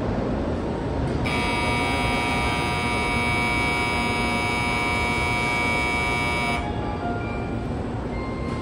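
Platform departure bell ringing as a steady electronic buzz that starts about a second in and cuts off after about five seconds, signalling that the Shinkansen is about to leave. A steady hum runs underneath.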